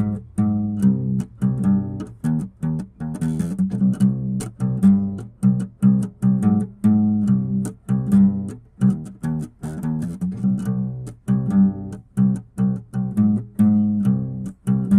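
Instrumental background music: a steady run of short plucked notes, about three or four a second, with a low, full tone.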